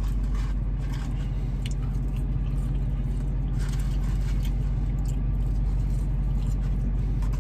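Steady low hum of a parked car idling, heard from inside the cabin, with faint chewing and small mouth clicks over it.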